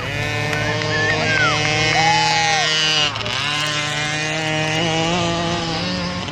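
Small peewee dirt bike engines racing by, revving up, dropping off sharply about three seconds in as the throttle is backed off, then revving up again.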